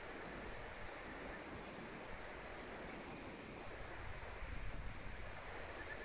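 Steady rushing of river rapids in the gorge below, with wind buffeting the microphone in low bumps, most about four to five seconds in.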